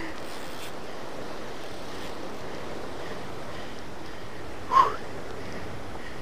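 Sea surf washing against the rocks below, a steady rush of noise with wind on the microphone. About five seconds in, a brief high-pitched sound cuts through.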